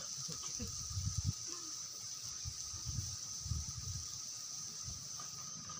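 Steady high-pitched drone of night insects over a soft hiss from chicken cooking in a wok over a wood fire, with several soft low thumps.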